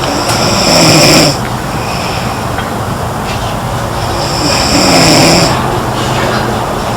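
A sleeping girl snoring: two loud rasping snores about four seconds apart, each lasting just over a second, over a steady background noise.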